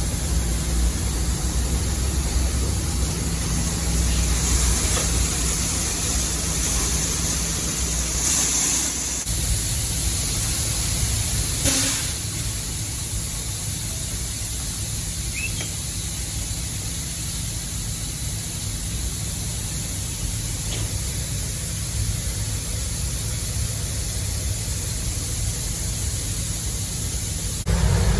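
Shelled corn pouring from a hopper-bottom grain trailer into an elevator pit, a steady rushing hiss over the truck's engine idling. The rush eases a little about twelve seconds in.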